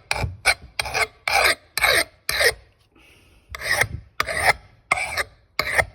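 A flat file rasping across the edge of an old steel Kentish axe head to sharpen it, in quick strokes about two a second, with a short pause about halfway through.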